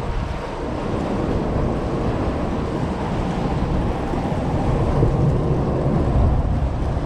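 Wind rushing over the camera microphone above choppy open water, a steady low rumble that grows a little louder toward the end.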